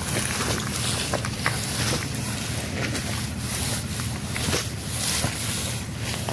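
Komodo dragons tearing at a wild boar carcass: scattered wet snaps and crunches over a steady low rumble.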